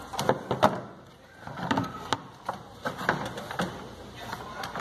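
Plastic radiator fan shroud being worked out of the engine bay: a string of irregular hollow knocks and clicks with scraping as it bumps and rubs against the radiator and hoses.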